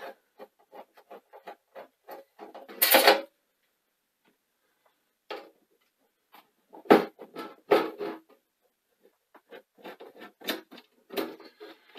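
Handling noises from the casing and front panel of a Sony SL-C9 Betamax video recorder: scattered clicks and knocks, with a short louder scrape about three seconds in and two loud knocks a little less than a second apart near the middle.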